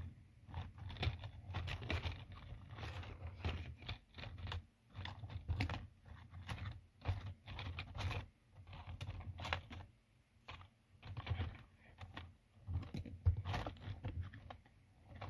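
Irregular plastic clicks and scrapes as a flat pry tool works along the seam of a Renault Laguna key card's plastic shell to open it, with handling knocks of the card against the fingers.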